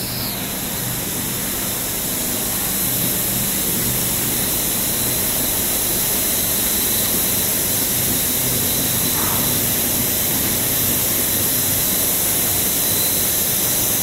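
Steady hiss with a low hum underneath from a silicone cable production line running: the extruder and the curing chambers with their air extraction.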